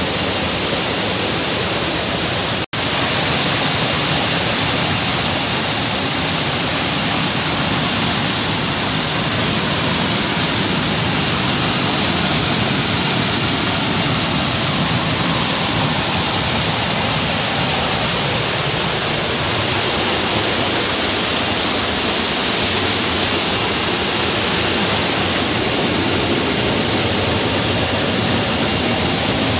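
Stream water rushing over rocks close by, a loud, steady, even rush. The sound cuts out completely for an instant just under three seconds in.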